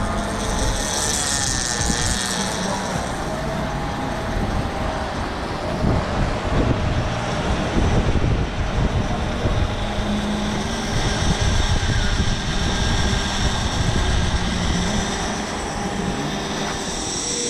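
Fishing drone's propellers whining steadily in flight over a heavy low rumble; the high whine is strongest near the start and again near the end.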